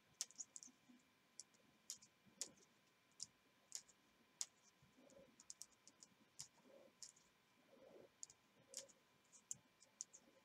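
Faint, irregular clicking of metal knitting needles tapping together as stitches are worked, a few clicks a second with short gaps.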